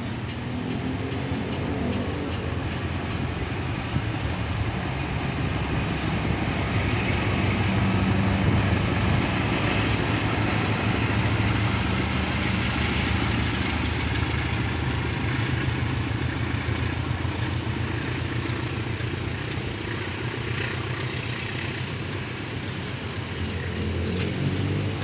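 Diesel-electric locomotive pulling out with a passenger train, its engine running loudest as it passes close by. The passenger coaches follow, with faint regular wheel clicks over the rails near the end.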